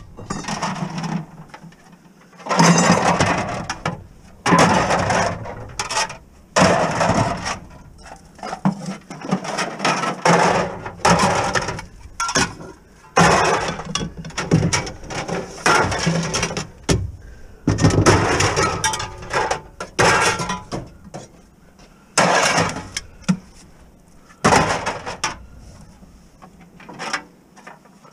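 Empty glass bottles and cans clattering and clinking as they are tipped and tossed into bins, in repeated bursts about one a second.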